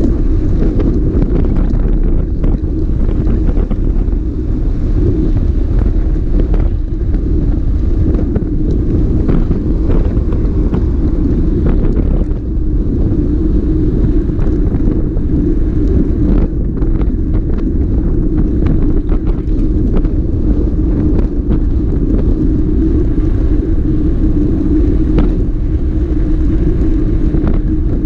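Motorcycle running steadily at cruising speed, with heavy wind noise buffeting the microphone.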